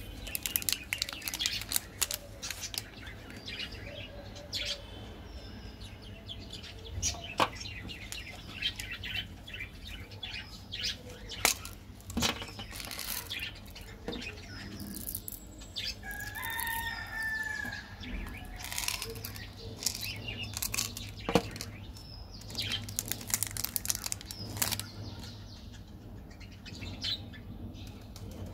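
Plastic candy wrappers crinkling and rustling in the hands as they are handled and torn open, with irregular sharp crackles.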